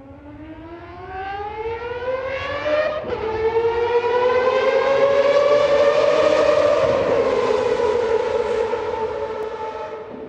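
Mazda 787B's four-rotor Wankel engine wailing as the car accelerates past: the pitch climbs, drops with an upshift about three seconds in, climbs again, then sinks slightly as the car passes and fades away.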